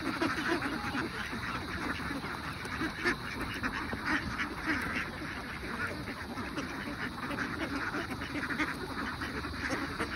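A large flock of domestic ducks quacking and chattering continuously, many calls overlapping at a steady level.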